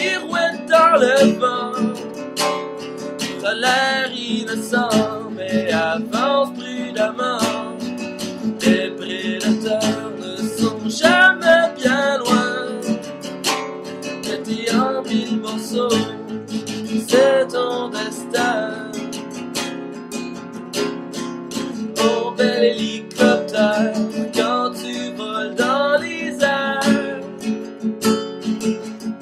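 Acoustic guitar strummed in a steady rhythm, playing a song accompaniment.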